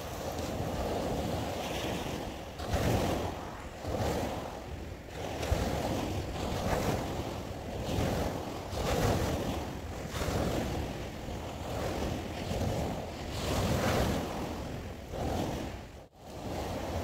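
Waves breaking and washing up a shingle beach, the surf rising and falling in repeated swells, with wind buffeting the microphone. The sound drops out for a moment near the end.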